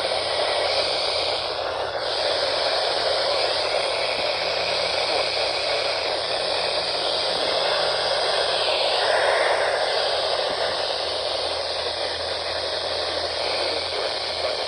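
Radio static: a steady hiss from a weakly received weather-radio broadcast, over a faint low hum.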